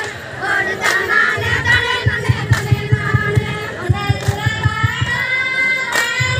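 Women singing a kummi folk song together for the kummi clapping dance, with a quick steady low beat underneath from about a second and a half in and a few sharp hand claps in unison.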